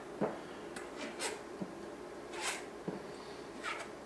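Spatula scraping pastry cream off the underside of a fine-mesh metal sieve: three short scraping strokes about a second apart, with soft taps in between.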